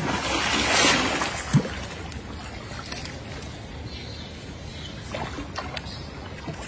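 Water splashing as a monkey leaps and plunges through shallow lake water, a loud splash over the first second, with a single sharp knock about a second and a half in. Softer sloshing and lapping of the stirred water follows.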